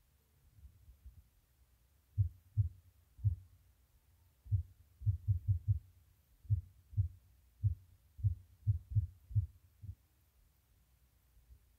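A series of low, dull thumps, about fifteen of them, irregularly spaced and partly bunched together. They start about two seconds in and stop a couple of seconds before the end.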